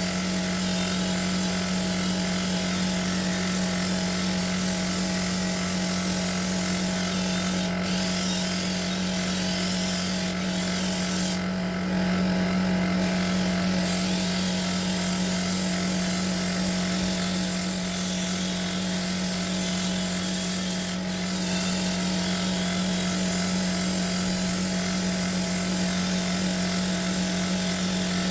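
Handheld electric power tool motor running steadily with a constant, even hum.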